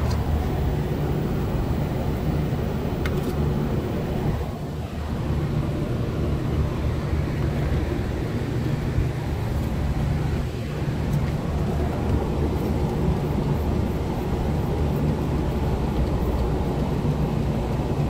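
Steady low mechanical drone of running machinery, with a steady hum and a brief dip about four seconds in.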